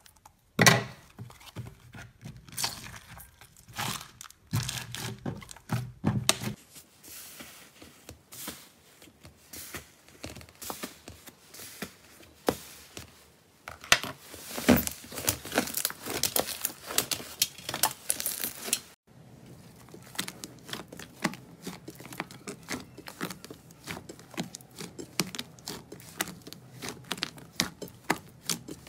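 Slime handled up close: scissors cutting open a plastic bag of blue slime with crinkling, then pink slime pressed and blue fluffy slime stretched and kneaded by hand. Dense small clicks, crackles and squishes throughout, changing in texture twice.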